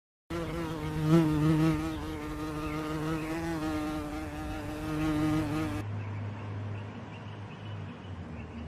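A steady buzzing drone with a slightly wavering pitch for about five and a half seconds. It cuts off abruptly and gives way to a quieter low hum.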